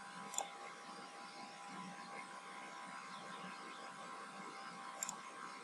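Faint steady electrical hum and hiss from the recording's background, with a sharp computer-mouse click about half a second in and two quick clicks near the end as edges are selected.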